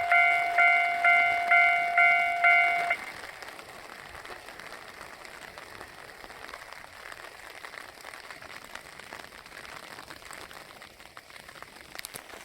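Japanese level-crossing warning bell ringing "kan-kan", about two strikes a second, that stops about three seconds in. After it comes a faint steady hiss, with a few clicks near the end.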